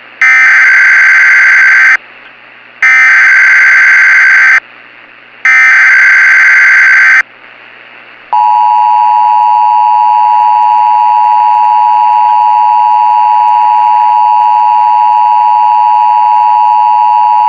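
Emergency Alert System tones: the SAME header, three identical bursts of chirping data tones about a second apart, then about eight seconds in the steady two-tone EAS attention signal. A steady hiss runs underneath.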